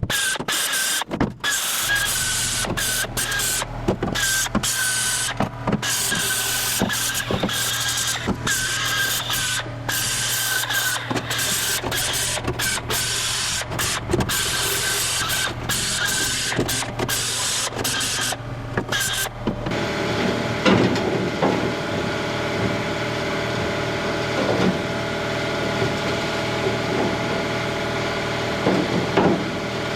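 A power tool working sheet steel: a whining, hissing run broken by frequent short stops. About two-thirds of the way through it gives way abruptly to a steady machine hum.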